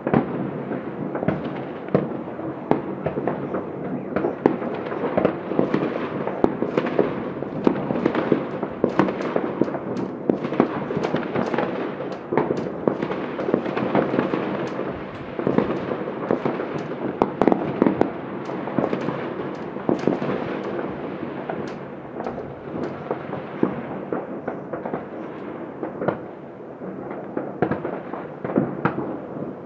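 Many fireworks going off all across a city at once: a continuous rattle of overlapping bangs and crackles with no pause, easing a little about three quarters through.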